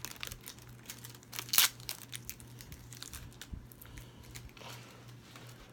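Plastic Blu-ray case and its packaging being handled: crinkling with a scatter of sharp clicks, the loudest about a second and a half in, over a faint steady low hum.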